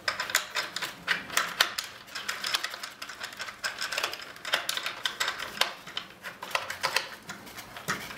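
Small screwdriver driving Phillips head screws into the nose of a model plane to fix the front undercarriage: a quick, irregular run of clicks and ticks.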